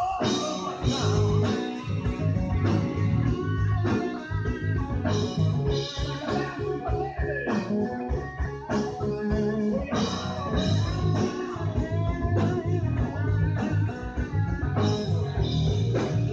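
Live blues-rock band playing, with electric guitar to the fore.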